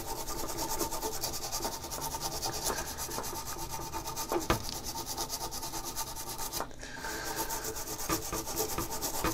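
Toothbrush bristles scrubbing alcohol-wet corrosion off the solder side of a Macintosh Plus logic board, in quick back-and-forth strokes. There is a short break about two-thirds of the way through.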